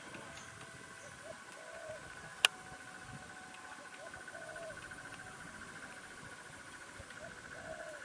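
Forest ambience: a steady, pulsing insect trill, short low animal calls every second or so, and one sharp click about two and a half seconds in.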